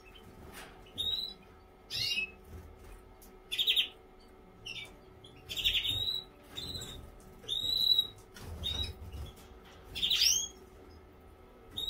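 Canaries giving short, upward-sweeping chirping calls, about one every second or two, over soft low thumps and a faint steady hum.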